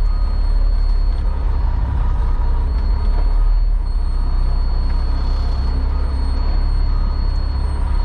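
Concrete mixer truck's diesel engine running with a steady low rumble and a thin constant whine above it.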